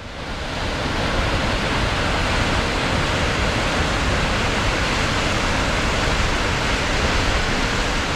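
The Falls of Inversnaid waterfall rushing steadily and loudly. The sound of falling water swells in over the first second and then holds even.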